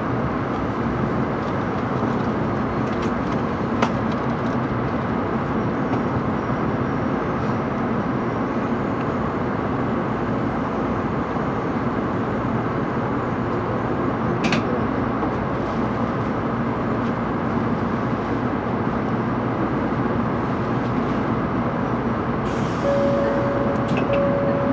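Interior running noise of a 700 series Shinkansen car, a steady rumble and hum as the train rolls slowly along the platform and comes to a stop. Near the end a short hiss and a steady single tone start.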